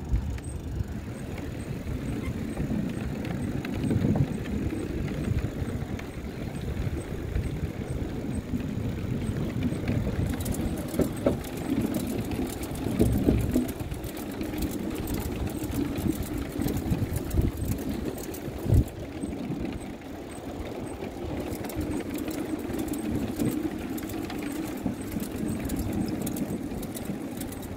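Bicycles rolling along a wooden boardwalk: a steady low rumble from the tyres over the planks. There is a faint regular ticking in the first part, and from about ten seconds in a run of light clicks and rattles.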